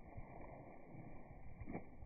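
Splashing of a dog bounding through a shallow creek, heard slowed down and muffled, with a sharper splash near the end.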